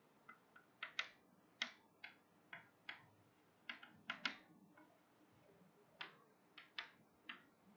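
Chalk tapping and scraping on a chalkboard while a word is written: faint, irregular short clicks, about a dozen of them, with a pause of about a second past the middle.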